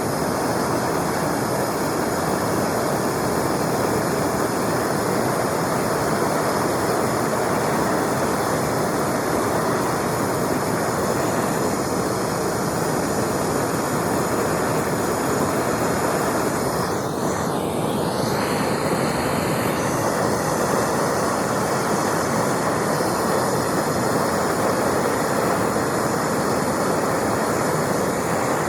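Handheld gas torch flame burning steadily with an even hiss, heating a boat rivet so the aluminum brazing rod will melt into it.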